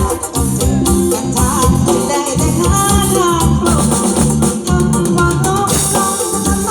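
Loud live band music with a steady low beat and a bending melodic line, accompanying an Isan lae performance.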